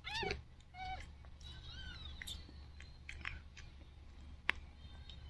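Cat meowing: a short call falling in pitch at the start, a second shorter call just before a second in, then thinner, higher mews about two seconds in. One sharp click about four and a half seconds in.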